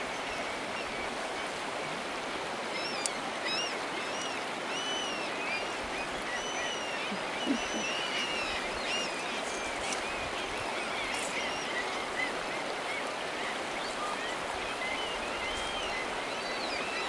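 Shallow river running steadily over gravel, with birds giving many short, arched chirping calls throughout. A brief louder sound comes about halfway through.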